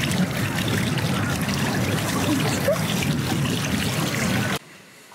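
Water trickling and splashing out from under the floating sphere of a granite kugel fountain while the ball is spun by hand. The sound stays steady, then cuts off suddenly about four and a half seconds in.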